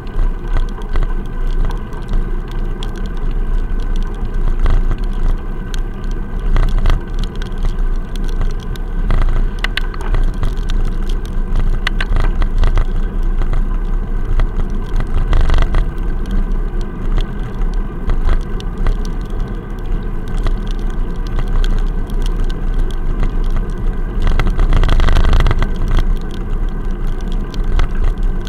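Muffled road rumble and frequent small knocks from an action camera sealed in a waterproof case on a bicycle riding a wet road. A car passes close by at the start, and there is a louder swell of noise about 25 seconds in.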